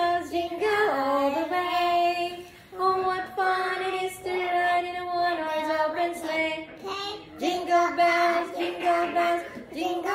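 A woman and a small girl singing a song together, in held notes that step up and down, with a brief pause about two and a half seconds in.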